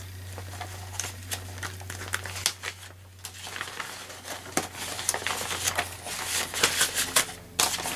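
Irregular crinkling and rustling of packaging being handled, busiest near the end.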